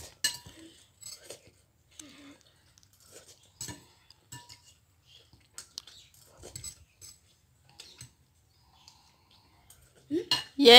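Metal fork clinking and scraping against a ceramic bowl in short, scattered strokes as noodles are scooped up and eaten, with some chewing between. A loud voice breaks in right at the end.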